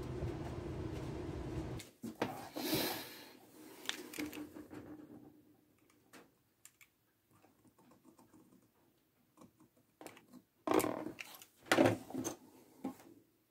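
Hands working thick leather on a wooden workbench: rustling, scattered clicks and taps, loudest in a few quick clusters near the end. A steady low hum runs for the first two seconds and cuts off suddenly.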